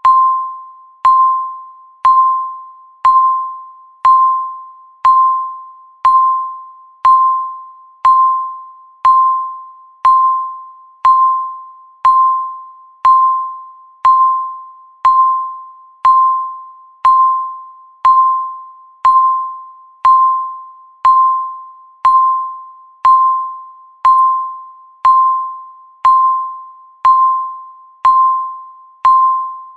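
Electronic countdown-timer beep sounding once every second, a single clear tone that starts sharply and fades away before the next, marking each second left.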